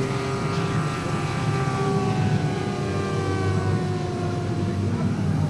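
JetCat turboprop turbine and five-blade propeller of a 1:3 scale Grob G 120TP model airplane in flight. A steady low propeller drone under a turbine whine that slides slowly down in pitch.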